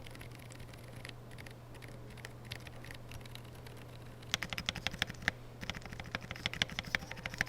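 Typing on a custom mechanical keyboard fitted with Wuque Studio silent switches: a few scattered key presses at first, then a fast run of keystrokes from about four seconds in.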